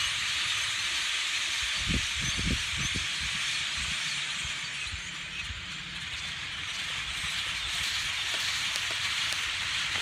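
A huge flock of small black birds calling all at once from bare trees and the air, a dense steady chatter that blurs into a hiss.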